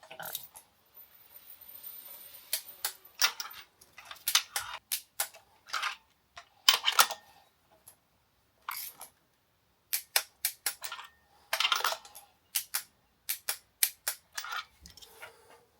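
Ratchet wrench clicking in short runs and single clicks, a spark plug being wound in and tightened.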